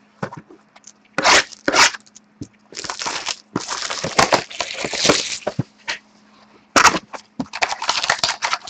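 Panini Totally Certified hockey card box being opened by hand and its wrapped packs pulled out: irregular rustling, crinkling and scraping of cardboard and wrappers in short bursts, with the longest stretch in the middle.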